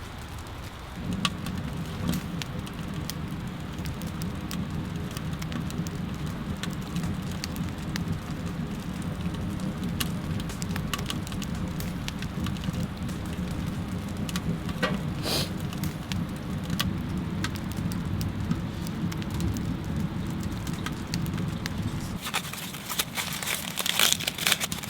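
Wood fire burning, a steady low rush of flame with scattered sharp crackles and pops. Near the end the crackling and rustling grow denser.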